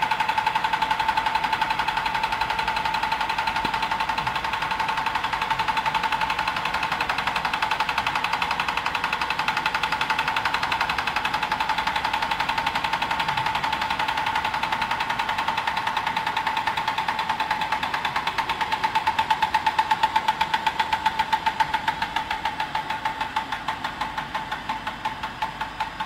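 RFID dry-inlay laminating machine running at speed: a rapid, even mechanical clatter over a steady whine. It grows a little louder past the middle and fades near the end.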